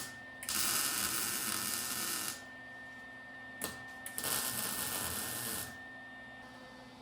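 Aerosol spray can of primer spraying in two bursts of steady hiss, about two seconds and then a second and a half long, each starting just after a short click.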